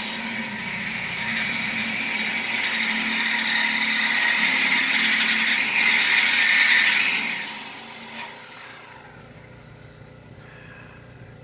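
A power saw cutting through mobile-home steel framing, heard from inside a car: a steady, noisy cutting sound that grows louder, then stops about eight seconds in, leaving a quieter low hum.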